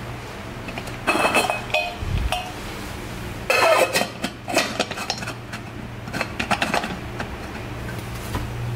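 Stainless steel rice cooker lid being set onto the cooker's pot, metal clinking and scraping against the rim in three short bursts, the loudest in the middle. A steady low hum runs underneath.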